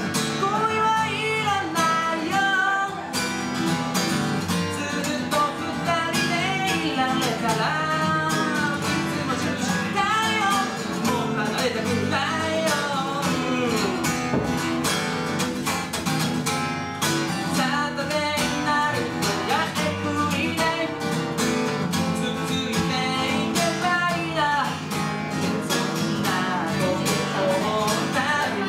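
Acoustic guitar played live, chords and picked notes running on without a break.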